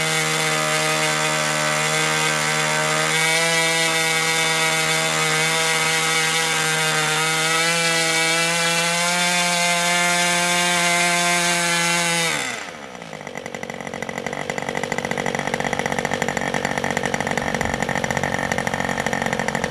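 HP 61 two-stroke nitro glow engine running at full throttle, cleanly two-stroking after its high-speed needle has been leaned, its pitch rising slightly as the needle is turned in further. About twelve seconds in the throttle closes, the pitch falls quickly, and the engine settles into a lower, rougher idle.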